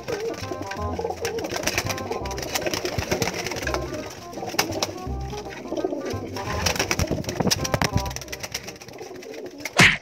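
Racing pigeons cooing in a loft, with music underneath and a brief loud noise just before the end.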